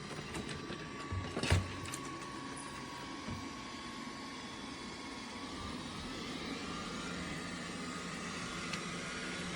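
Dreame L10s Ultra robot vacuum running: a steady motor whir with a thin high whine, and a few knocks about a second and a half in.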